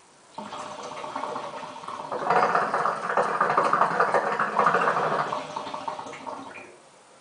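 Water bubbling in the bases of two hookahs, a Kaya PNX 660 V2 and an SKS 650, as smoke is drawn through them with long, even pulls. The bubbling starts about half a second in, grows louder about two seconds in and dies away near the end.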